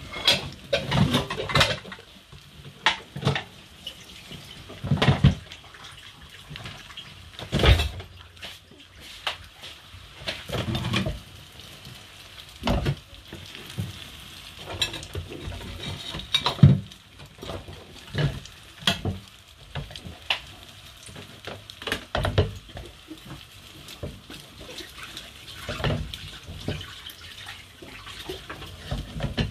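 Kitchen clatter: dishes and pans knocking and clinking irregularly, with water running at a sink and a spatula stirring in a frying pan over a steady hiss.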